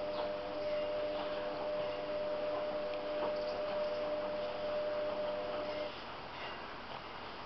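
A steady, even hum made of several held tones, which cuts off suddenly about six seconds in, with a few faint soft ticks over it.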